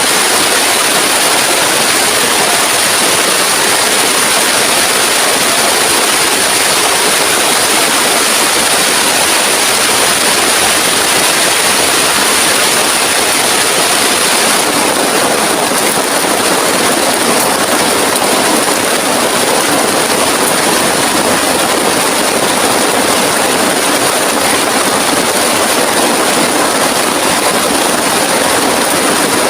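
Heavy rain falling steadily, a dense even hiss with no let-up. Its tone shifts slightly about halfway through.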